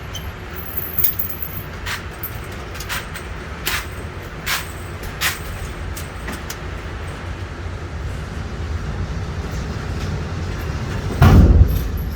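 Six gunshots at a steady pace, about 0.8 s apart, over a steady low rumble. Near the end there is a single louder, deep thump.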